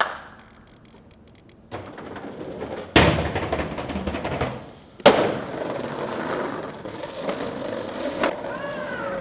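Skateboard riding: wheels rolling on concrete, broken by two hard board landings about three and five seconds in, then a steady rumble of wheels over the paving stones of a street.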